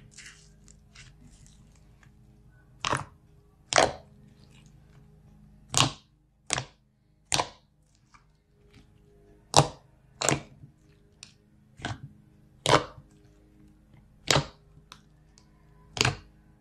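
Hands squishing and pressing a bowl of thick, aerated tan slime, with a loud, sharp pop about once a second as trapped air bursts out, about a dozen in all, and softer small crackles between them.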